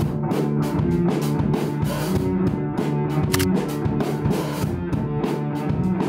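Background music with a steady beat: a band track of drum kit, bass and guitar.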